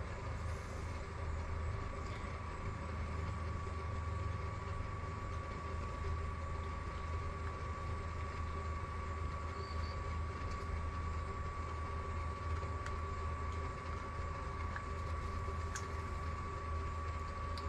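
A steady low hum with a thin, high whine held at one pitch throughout, and a few faint clicks.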